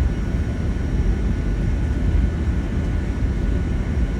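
Steady low rumble of a Boeing 757-300's engines heard inside the cabin on the ground before takeoff, with a faint steady high whine.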